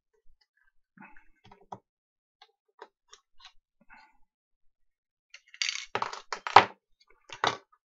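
Clicks and crunches of the hard plastic terminal block from a Bosch drill battery pack being handled and worked with needle-nose pliers. Faint scattered ticks come first, then a louder run of clicks about five and a half seconds in.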